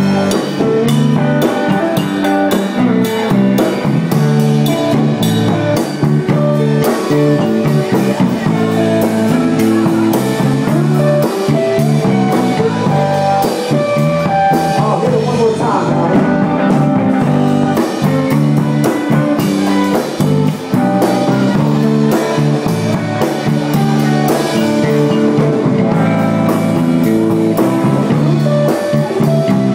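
Live band playing loud, with guitar and drum kit.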